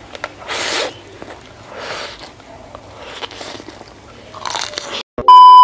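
A man slurping noodles off chopsticks, in about four long slurps. Just before the end, a loud steady electronic beep cuts in.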